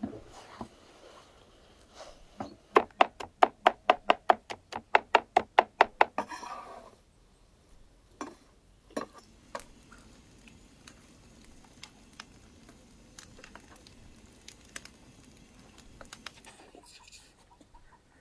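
A kitchen knife chopping rapidly on a wooden cutting board as tomatoes are diced, about five even strokes a second for a few seconds. A few single knocks follow, then the faint crackle of a wood fire burning in a brick oven.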